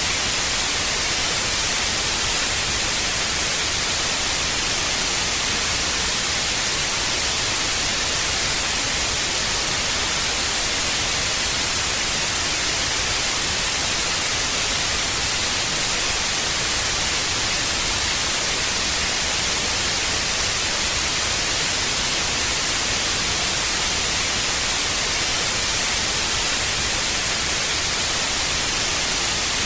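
Analogue TV static: a steady, even hiss of white noise, strongest in the treble, with no change throughout.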